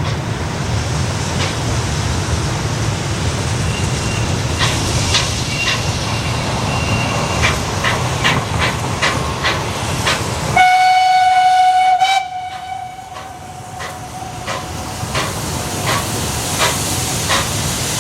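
Steam locomotive BR 98 886 train rolling by with a rumble and a steady clicking of wheels over rail joints. About ten seconds in, the steam whistle sounds, one loud blast for about a second and a half that then carries on fainter for a few seconds while the wheel clicks continue.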